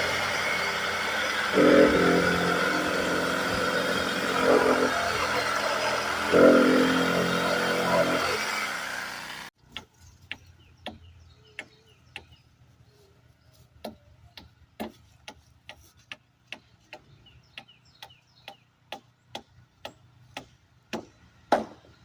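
A small engine, the generator, running steadily, with three louder stretches in the first half. It cuts off suddenly about halfway through, and faint, sharp hammer knocks on wood follow, roughly one or two a second, as nails are driven.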